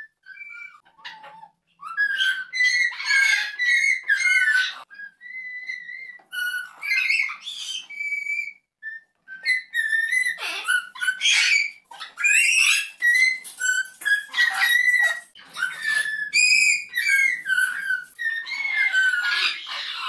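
Two red-lored Amazon parrots whistling melodies back and forth in a duet, clear whistled notes and pitch glides mixed with harsh calls, in phrases broken by short pauses. One bird whistles sweetly while the other copies in an agitated way, the imitation turning the melody into a dominance sound as they wind each other up.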